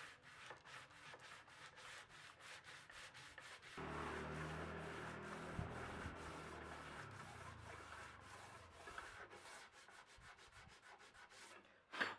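Hand sanding or rubbing on wood in quick, even back-and-forth strokes, about four to five a second. A low hum joins about four seconds in and fades after a few seconds, and a sharp knock comes near the end.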